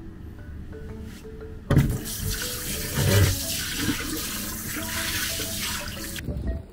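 Tap water running into a sink: an even rush of water that starts abruptly about two seconds in with a thump and is cut off sharply near the end.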